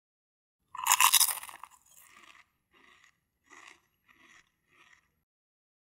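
A bite into a slice of pizza: one loud crunch of the crust about a second in, then five softer chewing crunches at a steady pace.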